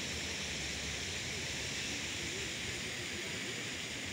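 Steady outdoor hiss of wash-like background noise, even throughout with no distinct events.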